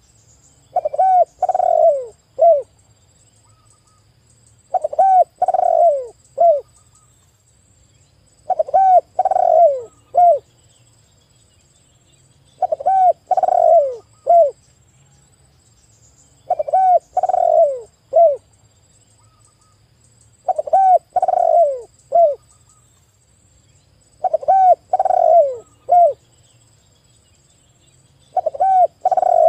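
Spotted dove (tekukur) cooing: a short phrase of three or four notes, one of them falling in pitch, repeated about every four seconds.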